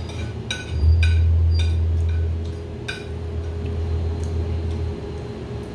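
Tableware clinking at a meal: about six light clinks of dishes or glass in the first three seconds, over a low steady hum that swells about a second in.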